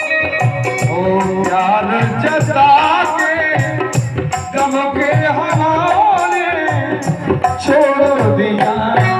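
A man singing a ghazal in a bending, ornamented line over harmonium, with drum and rattle-like percussion keeping a steady beat.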